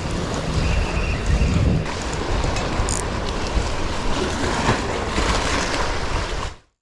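Wind buffeting the action camera's microphone over waves washing against shoreline rocks, a steady rumble that cuts off abruptly near the end.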